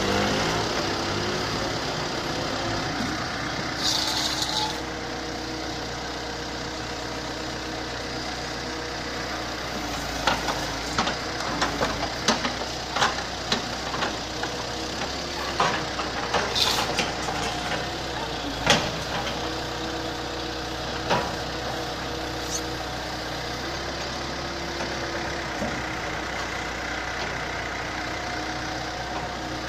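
Excavator engine running steadily. Sharp metallic knocks and clanks come in a run from about ten seconds in to past twenty, with a short hiss near the start and another midway.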